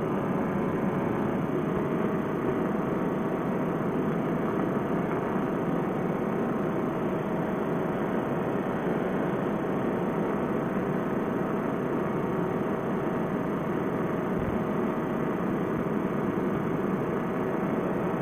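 Paramotor trike's two-stroke engine running steadily in cruise flight, a constant drone with no change in power.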